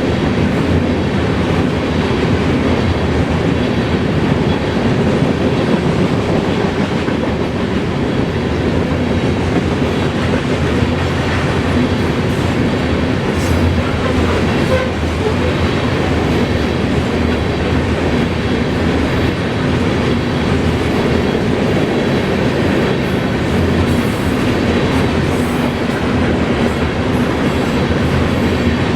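CSX grain train's cars rolling past close by: a loud, steady noise of steel wheels on the rails, without letup.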